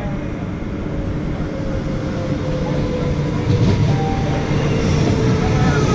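Queensland Rail electric multiple-unit train running into the platform and past, growing steadily louder, with a rumble under a steady electric whine that falls slightly in pitch.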